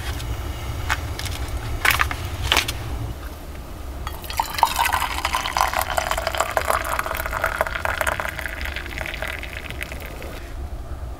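Hot tea pouring from a soot-blackened kettle into a stainless steel mug: a steady splashing stream that starts about four seconds in, rises a little in pitch as the mug fills, and stops about a second before the end. Before it come a few sharp knocks and clinks as the kettle is handled.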